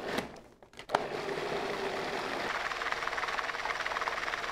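A couple of short knocks, then about a second in a food processor switches on with a click and runs steadily, its blade puréeing cooked potatoes and leeks into a thick soup.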